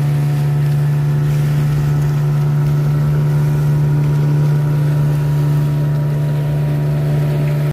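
Engine of a jukung outrigger fishing boat running steadily under way, a loud, even hum that holds one pitch throughout.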